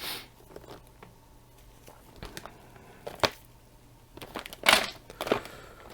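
Hands rummaging through a tangle of USB cables: scattered clicks, knocks and rustles, with a sharp click about three seconds in and a cluster of louder clatters near the end.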